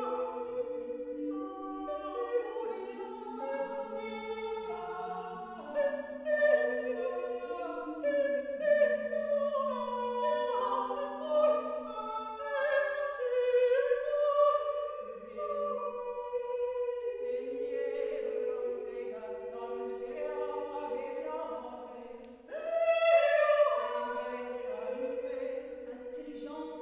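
Three women's voices singing a wordless a cappella improvisation, several long held notes overlapping and shifting in pitch step by step. The voices dip briefly about three quarters of the way through, then come back louder.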